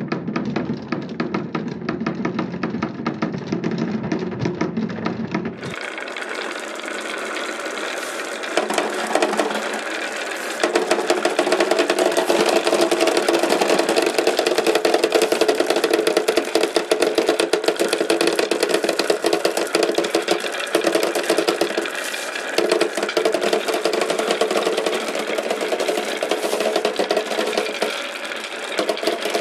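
Marbles rolling and clattering down a wooden marble run, a dense rapid rattle of wood and ball clicks that becomes louder and fuller about ten seconds in.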